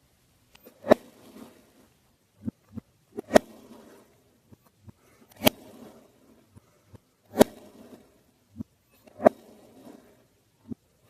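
Kinetic sand being sliced with a knife: about five cuts, roughly two seconds apart, each a sharp tap of the blade on the tray or board followed by a soft, gritty rustle of sand, with a few lighter taps in between.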